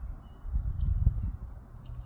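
Blackbirds feeding at a bird cam: scattered light clicks of pecking and hopping and a brief faint chirp, over a strong uneven low rumble.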